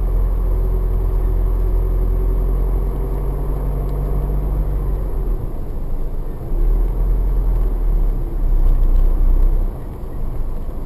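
Car driving on a tarred road, heard from inside the cabin: a steady low rumble of engine and tyres, with the level dipping briefly about halfway and again near the end.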